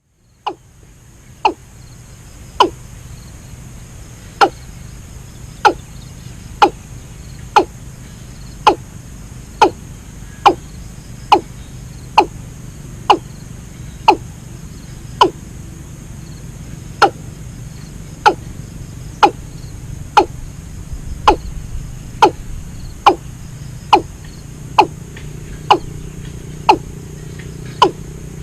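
A sharp knock repeated about once a second, each one dropping quickly in pitch, over a steady low hum.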